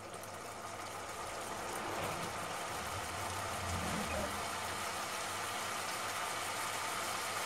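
Tomato chutney with stock coming to the boil in a kadai, a steady bubbling hiss that builds over the first second or two and then holds.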